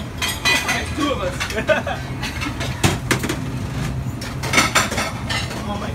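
Busy restaurant kitchen: dishes and utensils clattering with scattered clicks and knocks, indistinct voices in the background, over a steady low hum.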